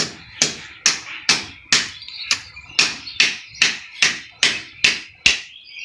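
Hammer striking a steel chisel in a steady rhythm, a little over two blows a second, each with a short metallic ring: chipping a groove into a plastered wall for a water pipe.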